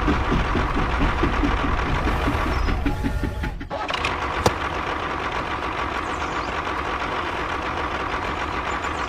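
Rhythmic engine chugging, about four or five beats a second, that breaks off nearly four seconds in; after a single click, a tractor engine runs steadily.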